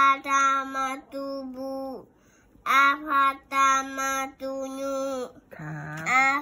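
A young child chanting the Thai alphabet in a sing-song voice, drawing out each syllable, in two phrases with a short pause between.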